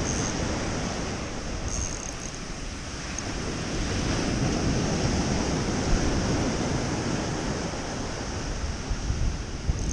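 Ocean surf washing on the beach, with wind buffeting the microphone in a low rumble.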